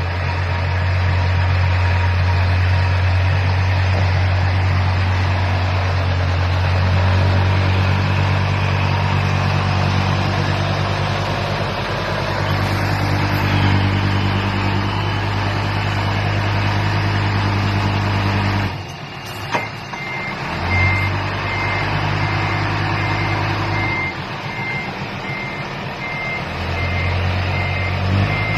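Dump truck's diesel engine running steadily, its pitch shifting a few times. About two-thirds of the way through the reversing alarm starts, beeping at a steady even rate.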